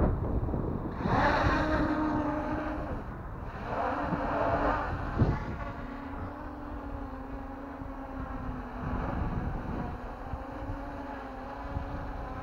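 MJX Bugs 3 Pro quadcopter's motors and propellers in flight, carrying a gimbal and camera, with a steady hum. Two louder rushes come in the first five seconds, and wind buffets the microphone.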